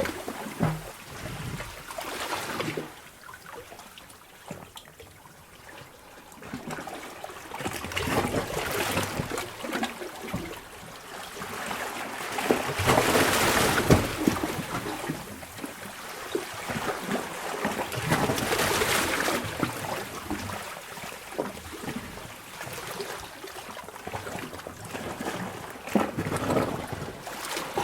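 Sea water surging into a sea cave and draining back out, with trickling, gurgling and dripping, swelling and ebbing every few seconds.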